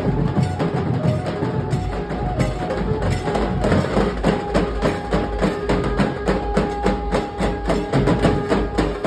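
Nasik dhol drumming: a dense, fast, even rhythm of heavy low drum beats and sharp cracking strokes. About four seconds in, held melody notes come in over the drums.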